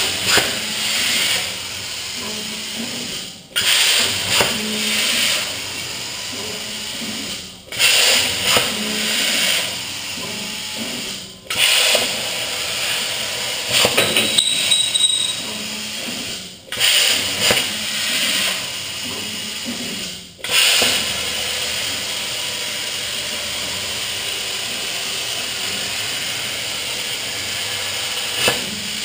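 Hypertherm 65-amp plasma cutter on a CNC plasma table cutting 1.5 mm steel sheet: a loud, steady hiss from the arc and air jet. It cuts out briefly five times and fires again sharply each time, then runs without a break for the last third.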